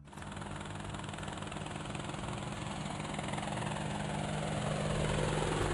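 Helicopter sound effect: engine and rotor noise with a steady low hum. It starts abruptly and grows gradually louder as the helicopter approaches.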